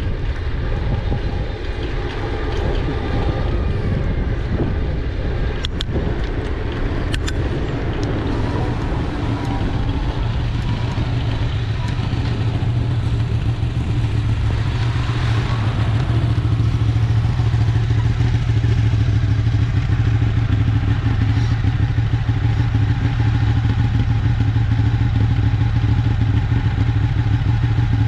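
Riding noise on an e-bike: a dense, steady low rumble that grows a little louder about ten seconds in, where a low hum settles in. Two sharp clicks come around six and seven seconds in.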